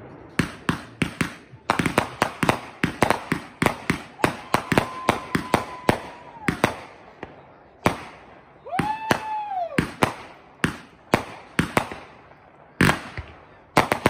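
Aerial fireworks going off overhead in a quick run of sharp bangs, two or three a second, with a short lull about eight seconds in. Over them, people whoop twice in long high-pitched cries, the second rising and falling about nine seconds in.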